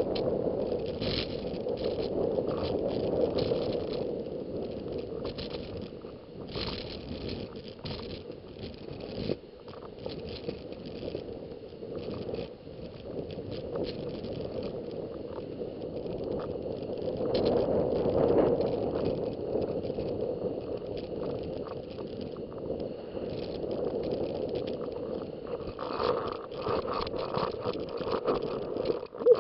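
Skiing or snowboarding on snow: a continuous scraping hiss of edges sliding over the slope, swelling and easing with the turns.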